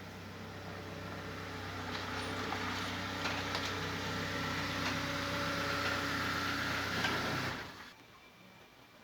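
A car running, a steady low engine hum under a growing rush of noise with a few light clicks, cutting off abruptly about seven and a half seconds in.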